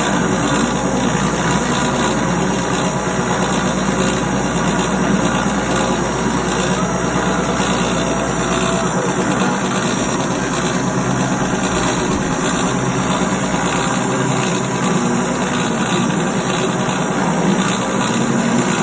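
CNC lathe running while turning a part: a steady mechanical noise of spindle and cutting with a low hum.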